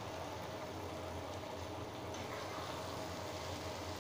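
Oil and mustard-paste masala sizzling steadily in a frying pan around fried ash gourd slices.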